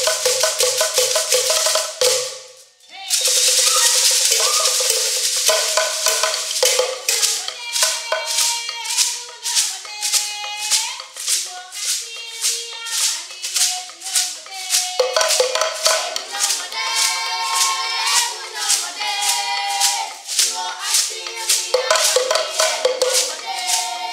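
Sekere, beaded gourd rattles, shaken by several players in a fast, steady rhythm, with voices singing over them from about a third of the way in. The sound breaks off briefly about two and a half seconds in.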